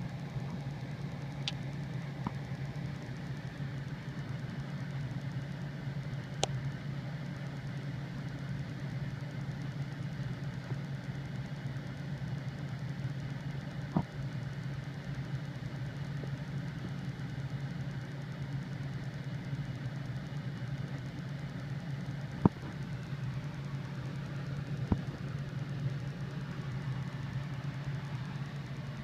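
Steady low hum with a few short, sharp clicks scattered through it.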